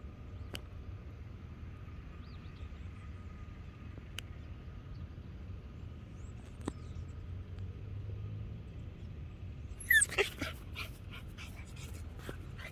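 Pitbull puppy giving a short burst of high yelps and whimpers about ten seconds in, followed by a quick run of sharp clicks. Before that only a faint low rumble.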